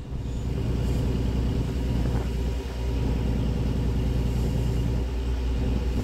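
Boat engine running steadily as the boat moves over open water: a continuous low drone with a hiss of water and wind above it.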